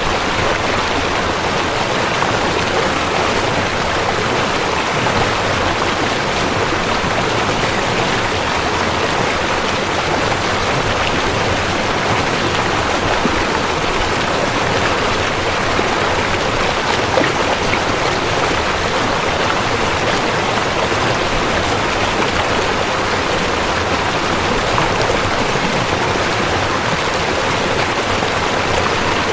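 Rushing river: a steady, even rush of flowing water.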